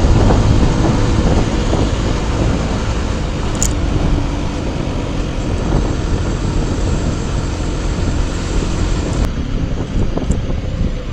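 Wind rushing over a helmet-mounted action camera's microphone while riding a Mondial HPS 125i motorcycle, with its single-cylinder engine faint underneath. The wind noise eases over the first few seconds, then holds steady.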